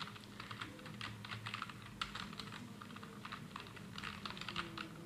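Computer keyboard typing: a run of quick, irregular keystroke clicks.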